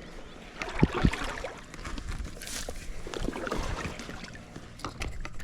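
River water splashing and sloshing, with two sharp knocks about a second in, as a landed trout is handled in the landing net and unhooked.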